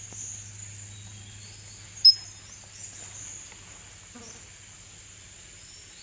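Steady high-pitched drone of forest insects, with one sharp, loud high chirp about two seconds in and a few faint high chirps.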